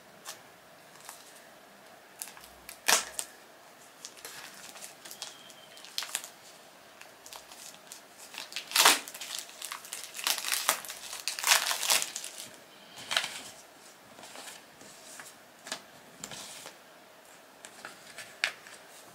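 Clear plastic packaging crinkling and rustling in the hands as a new baby bottle is unwrapped, with irregular sharp clicks of the plastic; the handling is busiest and loudest about halfway through.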